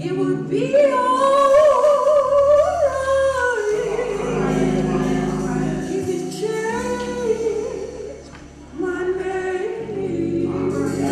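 A woman singing a slow gospel solo, holding long, ornamented notes over sustained keyboard chords, with a short break between phrases a little past the middle.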